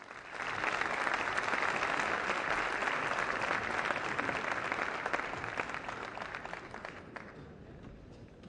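Audience applauding. It starts straight away, holds steady, then dies down over the last few seconds.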